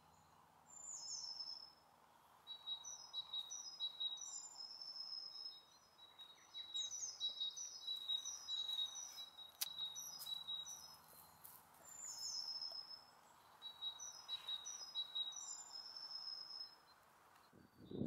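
Small woodland songbirds singing, faint, in repeated short phrases of quick high notes with brief pauses between them.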